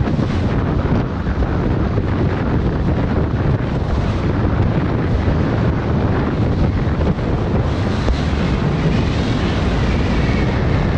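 Steady rushing wind buffeting a helmet-mounted GoPro's microphone while skiing downhill.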